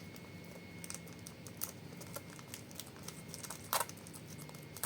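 Irregular small clicks and scratches of cutting open a sealed blind-bag packet, with a brief louder rustle of the packaging about three and a half seconds in.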